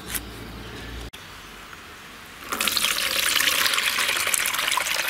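Water pouring from a steel pot into a basin as rinsed, chopped tender jackfruit pieces are drained, starting about halfway in and running steadily. Before it, a quieter stretch with a single click.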